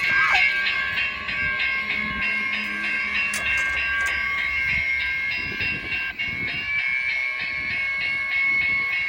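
Passenger train pulling out of a station. A steady high whine of several tones sits over the train's running noise, with a brief falling squeal just after the start.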